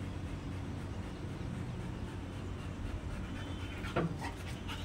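German shepherd jumping down from a woven cot, with one brief sound sliding downward in pitch about four seconds in, over a steady low background hum.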